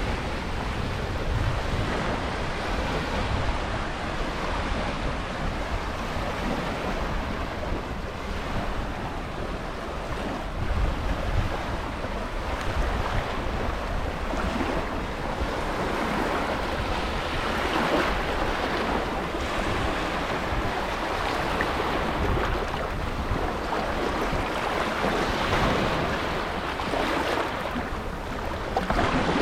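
Sea waves breaking and washing in a continuous surf, swelling and easing every few seconds over a deep rumble, with some wind noise on the microphone.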